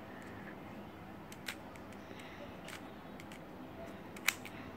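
GAN Monster Go magnetic 3x3 speed cube being turned one-handed: a few sharp plastic clicks as its layers snap into place, the loudest about four seconds in.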